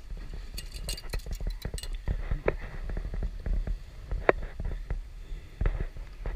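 Irregular knocks and light rattles from an aluminium landing net being handled aboard a fishing boat, with a cluster of quick clicks about a second in and a few sharper knocks later, over a low steady rumble.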